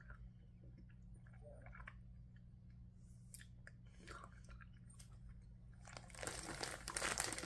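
Faint chewing of a gummy candy with small mouth smacks. About six seconds in, a plastic candy bag crinkles loudly as it is handled.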